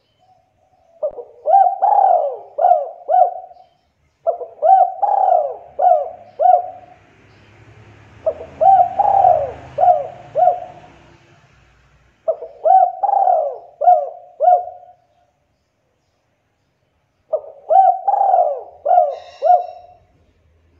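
Spotted dove cooing: five phrases a few seconds apart, each a quick run of four or five coos, the first note rising.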